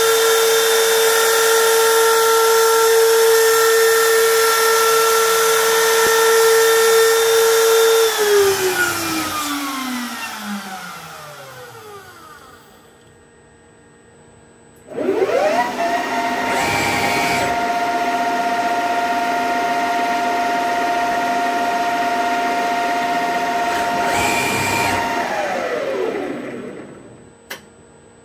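Milling spindle of a DIY CNC lathe running at a steady high whine with hiss, then spinning down in a long falling whine about eight seconds in. About halfway through, a motor spins up again, runs steadily at a different pitch for about ten seconds with two short bursts of hiss, then spins down, and a single click comes near the end.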